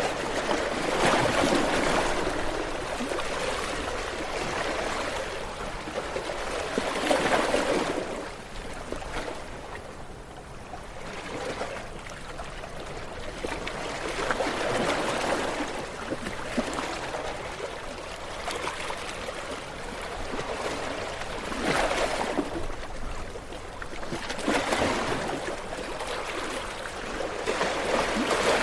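Ocean waves breaking on a shore, one after another. Each is a rushing surge that swells and then fades over a few seconds.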